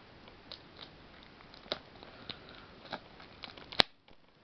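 Fingernails picking at the plastic shrink-wrap on a booster box: scattered small crackles and ticks, with one sharp snap near the end.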